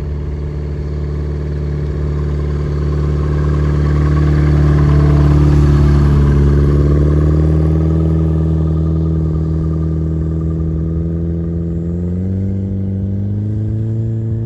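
Just Aircraft Highlander light aircraft's engine running as the plane flies by: a steady engine note that swells to its loudest around the middle, then sinks in pitch and fades a little as it moves away, with a brief rise in pitch near the end.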